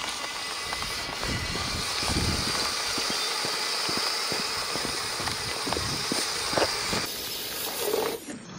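Home-built LEGO Technic RC truck driving over loose rocky, sandy ground: its small electric drive motors whine steadily while gravel clicks and crunches under the tyres. The sound drops away abruptly near the end.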